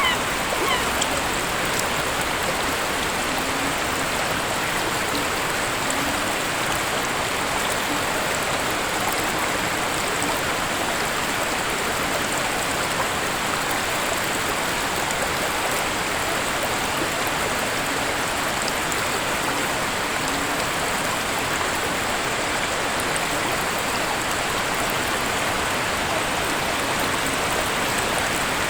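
Waterfall water rushing in a steady, even roar of falling and splashing water. A few honking bird calls die away in the first second.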